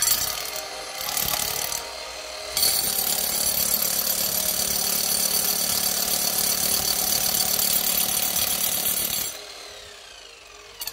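Milwaukee K750S hammer drill with a masonry bit, drilling into a concrete block under load. Uneven for the first couple of seconds, then running steadily, then released about nine seconds in, its motor winding down with a falling whine.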